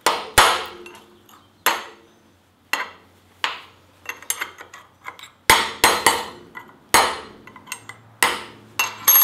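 Ball-peen hammer tapping at a stick-welded steel bracket to knock off weld spatter beads: about ten sharp, irregularly spaced metal-on-metal strikes, each ringing briefly.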